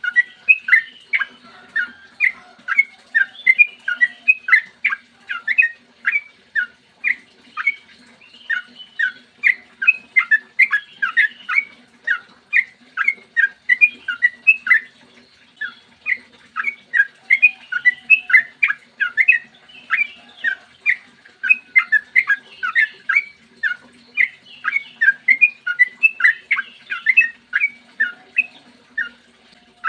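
Yellow-vented bulbul (trucukan) singing a long, fast 'ropel' run of short, sharp notes, several a second, in phrases broken by brief pauses.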